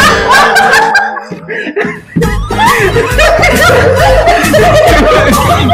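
Chuckling laughter over background music, with a strong bass beat coming in about two seconds in.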